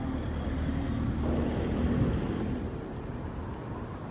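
Steady low rumble of city road traffic. It swells louder between about one and two and a half seconds in as a vehicle passes close by.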